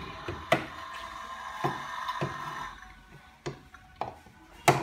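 Plastic toy cups knocking and being set down on a table: about five sharp clacks spread over a few seconds, the loudest near the end, over a faint steady hum that stops about halfway through.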